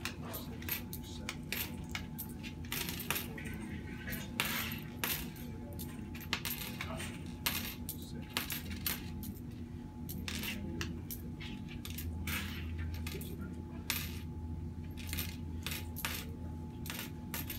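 Loose coins clinking and clattering against one another and the countertop in dozens of short, irregular clicks as they are set down and pushed across a shop counter.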